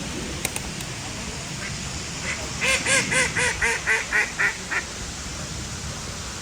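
A duck quacking in a quick run of about nine calls, about four a second, tapering off toward the end, over the steady rush of a waterfall.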